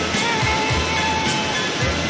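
Background music with low drum beats and a held melody, over the steady rush of a waterfall.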